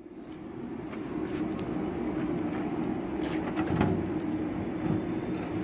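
A steady engine drone, with rattles and knocks from a jackhammer on its wheeled cart being rolled and then lifted into a trailer. The loudest clank comes about two-thirds of the way in.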